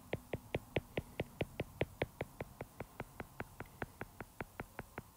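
Stylus tip tapping on an iPad's glass screen in quick short strokes: an even run of light clicks, about five a second.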